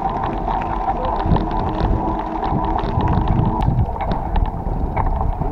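Wind rushing over the microphone while riding a bicycle, with the tyres rolling over gravel and many small scattered clicks and crunches.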